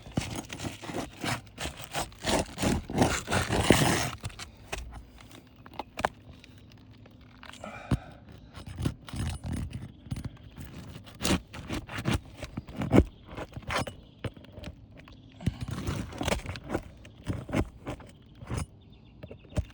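A prying tool scraping and tapping under brittle, delaminating roof shingles as a shingle is worked loose and its nails pried up, in an irregular run of short scrapes and knocks.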